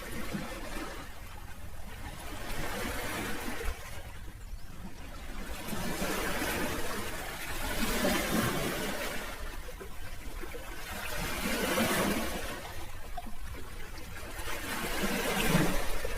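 Sea waves washing in, a rushing surf that swells and falls back about four times, the last surge the loudest.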